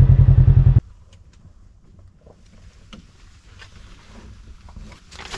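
A Polaris RZR 1000 side-by-side's engine runs with a steady low pulsing, then stops abruptly under a second in. After that come faint rustling and small clicks of a paper trail map being handled in the cab, with a louder rustle near the end.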